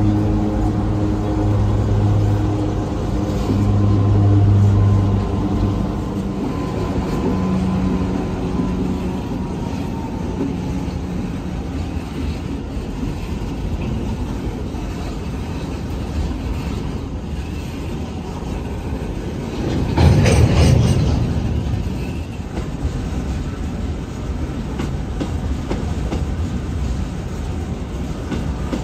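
Diesel freight locomotives passing with a steady engine drone, then grain hopper wagons rolling by with a rumble and wheels clacking over rail joints. About two-thirds of the way through a single loud clank rings out as the train slows.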